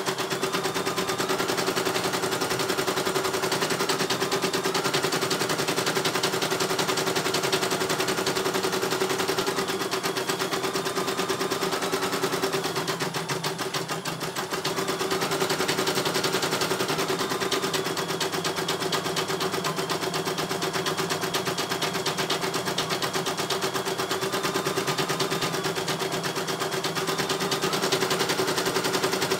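CNY E900 computerized embroidery machine stitching a design: rapid, steady needle clatter over a motor hum. A higher whine rises and falls in stretches as the hoop is driven around, and the clatter dips briefly about halfway.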